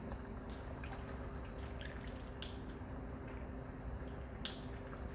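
Beef stew broth boiling in an Instant Pot: a faint, steady bubbling with a few small pops.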